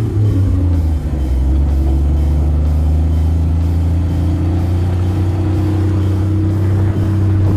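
1975 Jeep CJ5's engine running steadily under way on the trail, with music playing over it.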